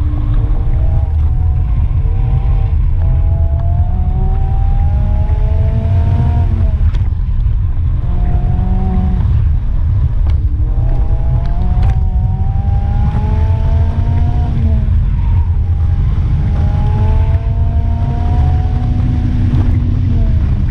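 Mazda MX-5 Miata's four-cylinder engine revving up and backing off over and over on an autocross run, each pull rising in pitch for a second or two before dropping away. Heard from the open cockpit with a heavy low rumble of wind on the microphone.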